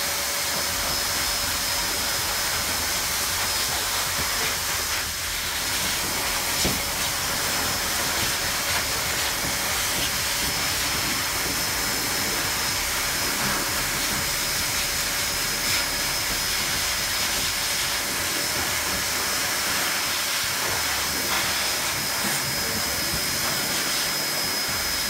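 Dog-grooming blower dryer blowing air through its hose into a German Shepherd's thick coat: a steady rushing hiss with a thin, unchanging high whine.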